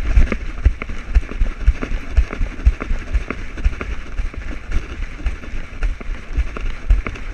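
Rhythmic low thumps, about two a second, as a husky shepherd mix's running or trotting stride jolts a camera strapped to his back. Smaller clicks and rubbing from fur and the harness fall between the thumps.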